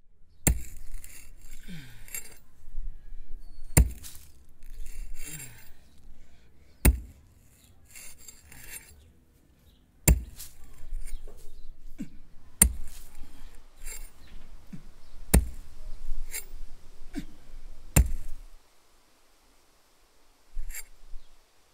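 Pickaxe striking dry, hard ground seven times, roughly every three seconds, each sharp blow followed by a scrape and rattle of soil and grit.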